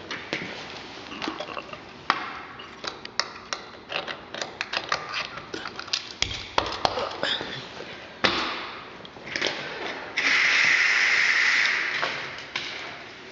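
A quick run of sharp clicks and knocks, like something being handled. About ten seconds in, a steady hissing rush starts, holds for about two seconds, then fades.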